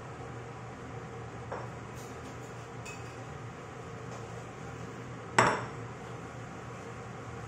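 Kitchenware clattering: a few faint clinks and a soft knock, then one loud metallic clank with a short ring about five seconds in, over a steady low hum.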